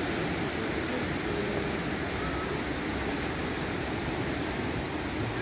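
Steady rushing noise of sea surf washing onto the shore.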